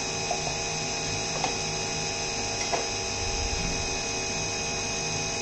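CNC milling machine's spindle running with a small cutter in a metal clutch cover under flood coolant spray: a steady high whine with a few faint ticks.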